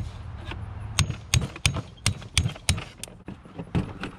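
Metal knocks and clinks as a tool is put down and the partly dismantled alternator is handled on a folding table: about eight sharp knocks over three seconds, after a low steady rumble in the first second.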